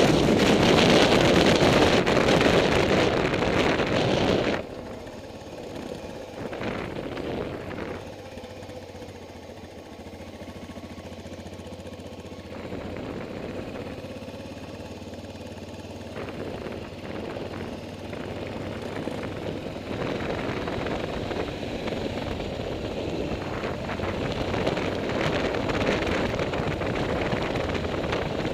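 Wind rushing over the microphone of a camera riding on a moving motorcycle, with the bike's engine running underneath. The loud wind noise drops off suddenly about four and a half seconds in, then the wind and engine build slowly toward the end.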